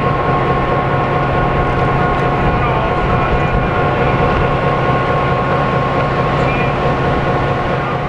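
EMD GP7 diesel locomotive idling at a standstill, its 16-cylinder 567 engine running with a low hum and a steady whine over it.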